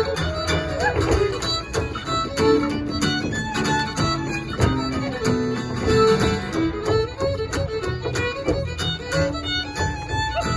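Fiddle and guitar playing an Irish hornpipe at a lively steady pace, with many sharp taps sounding through the music.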